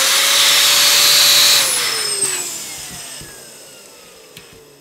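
Electric balloon pump blowing up a latex balloon: a loud rush of air with a steady motor whine, which about a second and a half in starts winding down, falling in pitch and fading as the motor stops.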